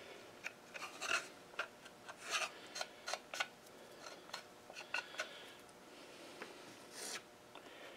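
Faint handling sounds of small wooden whirligig wing pieces being fitted and glued: a series of short scratchy scrapes and light clicks at irregular intervals.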